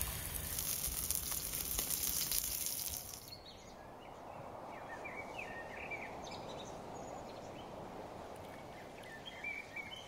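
Eggs frying in a large wide pan: a loud, steady sizzle that cuts off about three seconds in. Then outdoor ambience, a steady hush with scattered bird chirps.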